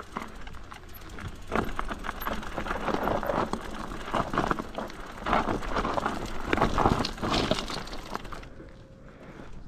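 Irregular crunching and scraping of movement over rough, loose mountain ground, coming in uneven bursts that die down near the end.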